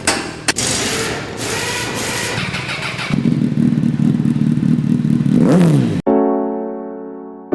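Vespa 125 T5's single-cylinder two-stroke engine running, with a few sharp clicks at the start, then revving up about three seconds in and falling away as the revs drop. Cut off abruptly by piano music about six seconds in.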